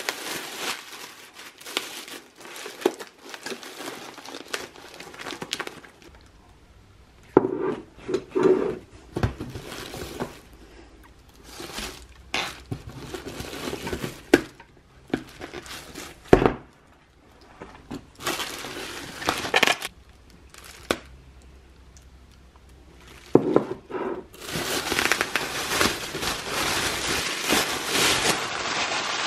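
Bubble wrap and plastic packaging crinkling and rustling in irregular bursts as groceries are pulled out of a cardboard box, with several sharp knocks from tubs and packets being handled. Near the end the crinkling runs on without a break.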